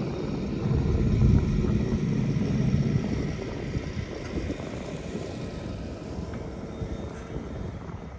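Diesel engine of a Fendt 720 tractor towing a trailed sprayer as it drives past, loudest about one to three seconds in and then fading as it moves away.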